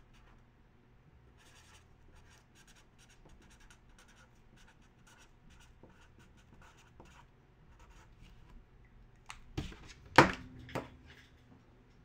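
Quiet scattered taps and rustles of things being handled on a desk, then a few louder knocks about ten seconds in, one sharp knock the loudest.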